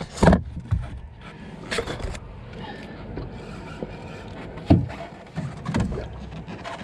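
Several sharp knocks and bumps on a small boat as the angler moves about the deck while landing a hooked trout, over a low steady rumble.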